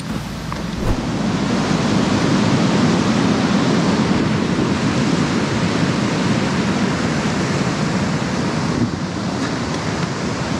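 Rushing mountain stream tumbling over rocks: a steady, loud rush of water that swells over the first couple of seconds and eases slightly near the end.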